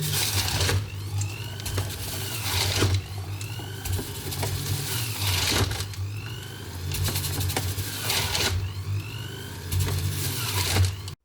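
Electric juicer motor running on kinnow oranges, a steady hum broken by knocks and rattles every couple of seconds; it cuts off suddenly near the end.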